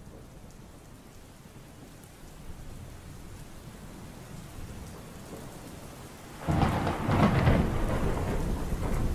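Quiet, steady rain, then a loud clap of thunder about six and a half seconds in that keeps rumbling on.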